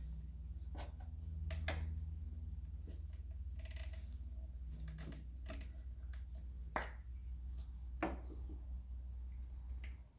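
Scattered small clicks and taps of spark plug wires and their boots being handled and pressed into place on the engine, a few of them sharp, over a steady low hum that drops away at the very end.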